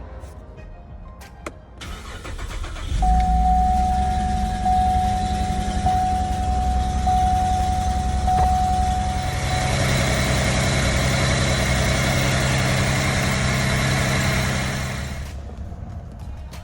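Car engine starting about three seconds in and then running steadily, with a repeating dashboard-style chime tone over the first several seconds. The car starts after the no-start fault was repaired. The sound fades out near the end.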